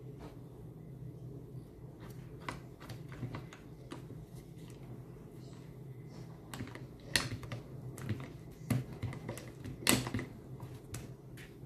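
Irregular light clicks and ticks from a drill's keyless chuck being handled and twisted tight by hand, with two louder clicks in the second half.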